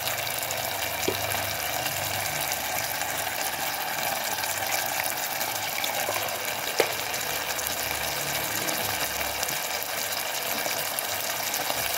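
Beef slices frying in oil in a pan: a steady sizzling hiss. Wooden chopsticks stirring the meat give a couple of sharp clicks against the pan, the loudest about seven seconds in.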